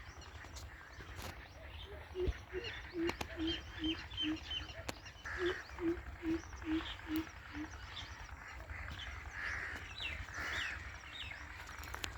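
Greater coucal calling: two runs of deep, evenly spaced hooting notes, about six in each run at roughly two and a half notes a second.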